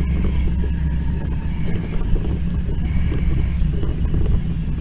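Steady low drone of a running engine at constant speed.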